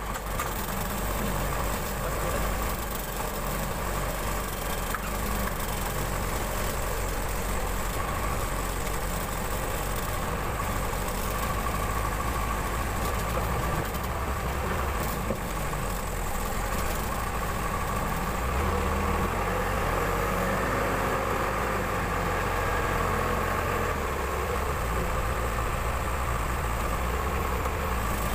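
Case 580 Super L backhoe loader's diesel engine running steadily while working, with a steady whine above the engine rumble.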